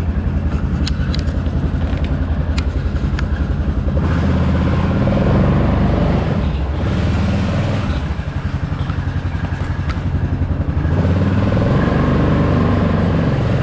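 ATV engine idling with an even pulsing beat and a few light clicks, then running at higher revs from about four seconds in as the quad moves off. The revs dip for a moment in the middle and rise again near the end.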